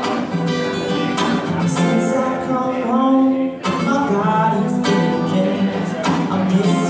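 A male solo performer singing live while strumming an acoustic guitar.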